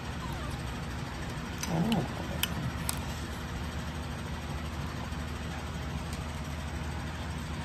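Steady low hum of an air conditioner. About two seconds in there is a short voice-like sound, then two faint clicks.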